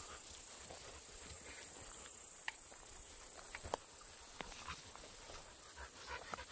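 Steady high-pitched insect buzzing, with footsteps through brush and scattered twig snaps, the sharpest a little under four seconds in.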